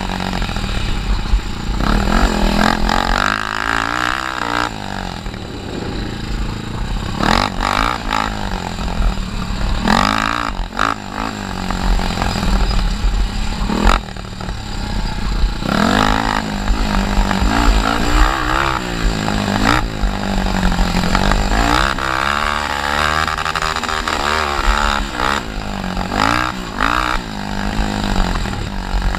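Honda TRX300EX quad's single-cylinder four-stroke engine revving up and down again and again under racing throttle and gear changes on a bumpy dirt trail, with a few sharp knocks from the machine over bumps.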